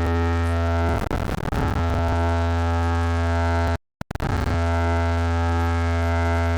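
A loud, steady low bass drone played through a DJ sound system's speakers: one held low note with many overtones. It cuts out completely for a moment a little after halfway, then carries on unchanged.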